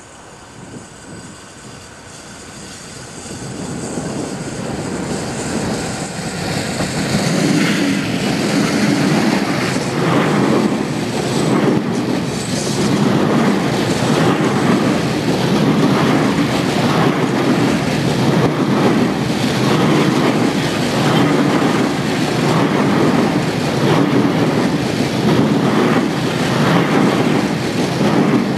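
Class 66 diesel locomotive with its two-stroke V12 engine, growing louder as it approaches. A long train of covered hopper wagons then runs past with a steady, rhythmic clickety-clack of wheels over the rail joints.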